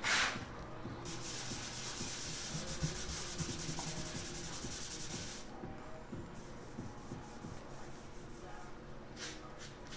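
Sanding block rubbing over latex paint kept wet with a rag, a steady scratchy rubbing that is loudest from about a second in to just past the middle, then softer. This is wet sanding a fisheye dimple level in the paint film.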